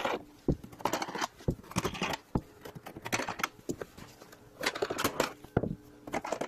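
Hands unscrewing knurled knobs from a thin stamped aluminium engine cover: irregular sharp clicks and knocks of metal, with scraping and handling noise between them.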